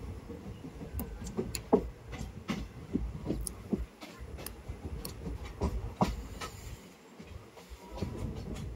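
Indian Railways passenger train running along the track, heard from aboard with the camera out of a coach window: a steady low rumble of wheels on rails with irregular clicks and knocks.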